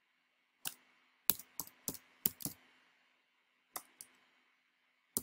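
Keystrokes on a computer keyboard as a word is typed: about eight separate key presses in irregular groups, with a pause of about a second in the middle.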